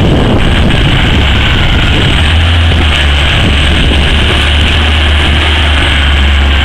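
Heavy diesel mining machinery running steadily and loudly: a hydraulic mining shovel working as it loads a large rigid haul truck, a continuous low engine drone.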